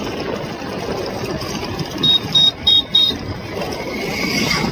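Wind and road noise from riding an electric scooter, rushing over the microphone, with four short high beeps about two seconds in.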